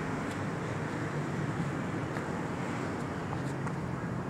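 Steady outdoor background noise with a low hum underneath, and a few faint light clicks.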